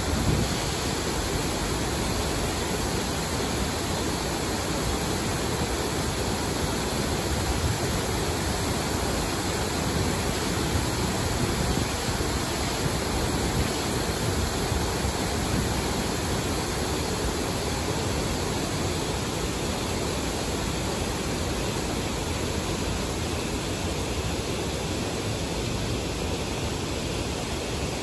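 Artificial waterfall pouring into a shallow urban stream: a steady, even rush of falling water that does not change.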